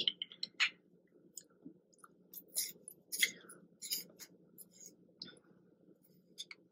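Faint, scattered small clicks and soft mouth sounds from lining the lips with a lip liner pencil, over a low steady hum.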